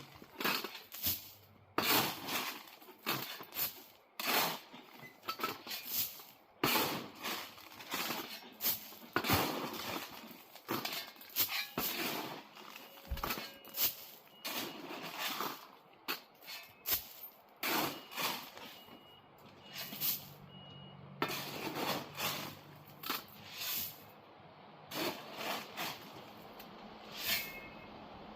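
A steel shovel scooping and dumping crushed-stone track ballast, over and over: a gritty scrape into the pile, then a crunching rattle of stones as each load lands, about one or two strokes a second.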